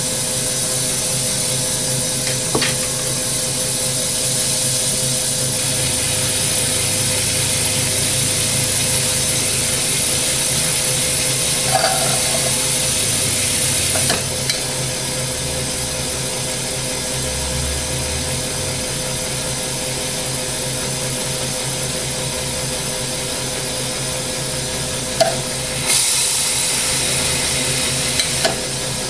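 Hydrogen-oxygen torch flame hissing steadily on a spinning quartz tube in a glass lathe, heating it white-hot to pull it into two test-tube halves, with the lathe's steady hum underneath. The hiss softens about halfway through and grows again near the end, with a few faint clicks.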